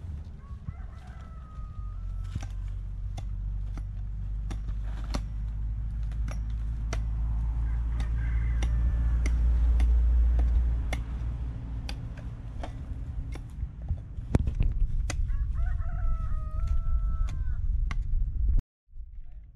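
A rooster crows three times: faintly about a second in and again about eight seconds in, then most clearly about sixteen seconds in. Under it a hoe chops into soil with many sharp knocks, over a steady low rumble.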